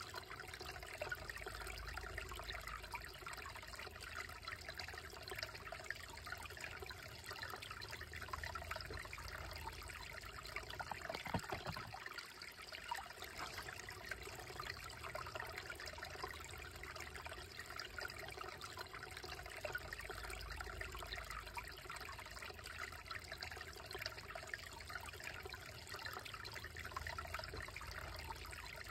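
Shallow, slow-moving creek trickling over stones and around boulders: a steady, gentle water sound.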